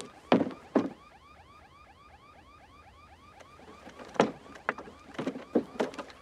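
Footsteps knocking on the metal ladder rungs of a children's slide: two steps near the start, then a run of about five more from about four seconds in as he climbs down. Behind them an electronic alarm warbles quietly and steadily.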